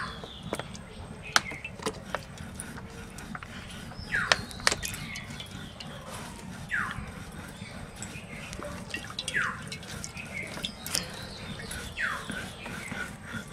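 Mustard oil poured from a plastic bottle in a thin stream, splashing softly into an iron kadai. A short falling whistle-like call repeats about every two and a half seconds, with a few sharp clicks in the first couple of seconds.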